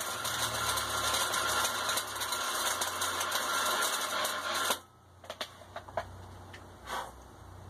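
MIG welder arc crackling and sizzling as the air pipe is tack welded to the steel forge body. It runs about five seconds and cuts off suddenly, followed by a few light clicks and a short burst near the end.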